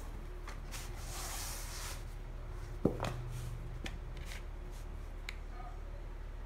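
A fabric-topped floor mat being handled and laid on a wood-look floor, rustling and rubbing, with light clicks and one sharp knock about three seconds in.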